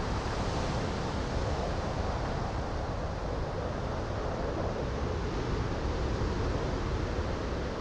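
Steady rushing noise of wind and heavy sea waves, a stormy-ocean ambience.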